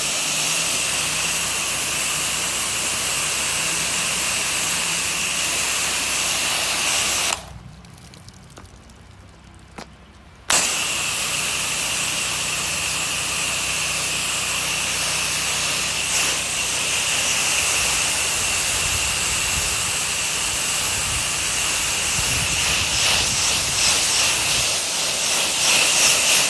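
Pressure washer spraying water from its wand, a loud steady hiss over the low hum of the machine. The spray cuts off about 7 s in and starts again about 3 s later.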